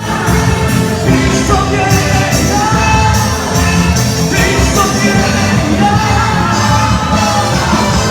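Live band music with a singer, loud and continuous, with a steady beat; some shouting from the crowd.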